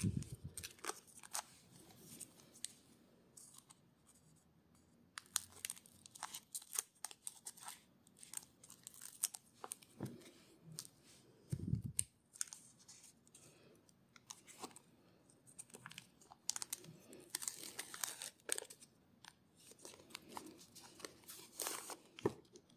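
A foil trading-card booster pack crinkling and being torn open by hand, in irregular clusters of sharp crackles and rips with short pauses between.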